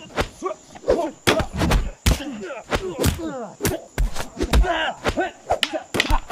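A rapid run of sharp hits and knocks from a staged weapon fight, with short grunts and yells from the fighters between the blows.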